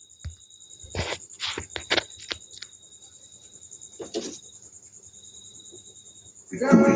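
Crickets chirping steadily at a high pitch, with a few scattered clicks and knocks of handling around the first few seconds. Music starts loudly from the test speakers near the end, played through the repaired mixer to check the channel.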